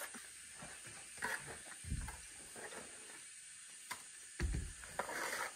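Faint scraping of a plastering trowel spreading cement render over a block wall, a couple of short swishing strokes, with a few light clicks and two low thumps.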